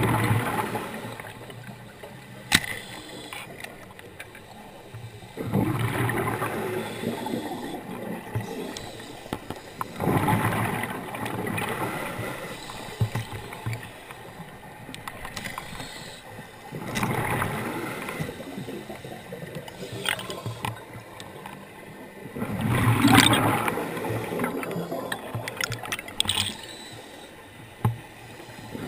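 Scuba regulator exhaust bubbles heard underwater: a gurgling rush of bubbles every five to seven seconds as the diver breathes out, with quieter hiss between breaths and a couple of sharp clicks.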